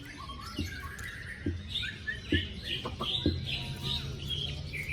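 White-rumped shama (murai batu) singing a fast string of short, varied whistled and chattering notes. Several sharp taps or knocks are mixed in.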